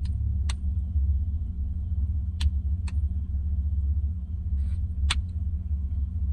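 A steady low rumble with a constant hum, like a motor vehicle's engine running, with four short, sharp clicks scattered through it, the loudest about five seconds in.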